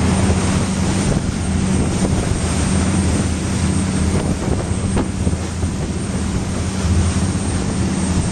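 Pilot boat's engines running at speed, a steady low drone, under the rush of spray off the hull and wind.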